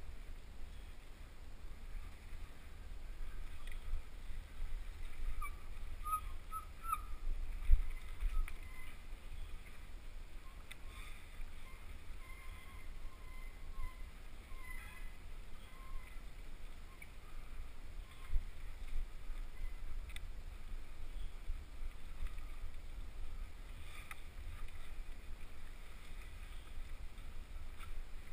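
Mountain bike rolling down a dirt trail, heard through a helmet-mounted camera: a steady low rumble of wind and ride vibration on the camera, with a sharp knock from a bump about eight seconds in and another near eighteen seconds. A few faint high chirps sound in the first half.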